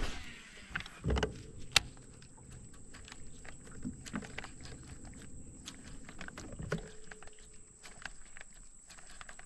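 Handling sounds on a bass boat while an angler casts and works a topwater frog lure: a knock about a second in, then a sharp click, the loudest sound. After that come light scattered ticks over a low hum that stops about seven seconds in, with a steady high whine throughout.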